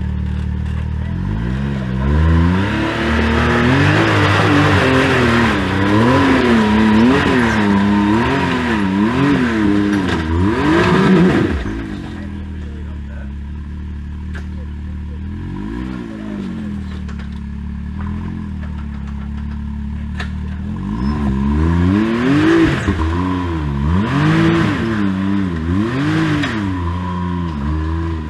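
Side-by-side UTV engine revving up and down in short, repeated throttle blips while crawling up a rocky waterfall climb. For several seconds in the middle it settles to a lower, steadier running, then the blipping resumes.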